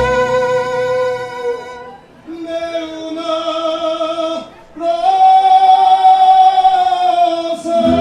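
Mariachi singing: voices holding long notes with the band's low strings mostly dropped out, a dip at about two seconds, a short break a little after four seconds, then one long held note.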